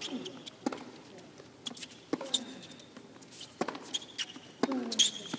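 Tennis rally on a hard court: the ball struck back and forth by rackets about every second, with high shoe squeaks on the court surface and a player's short grunt with some of the shots.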